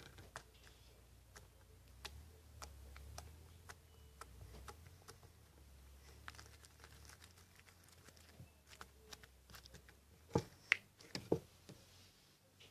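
Slime being squished and kneaded by hand, giving soft, irregular clicks and small pops, with three louder pops a little after ten seconds in.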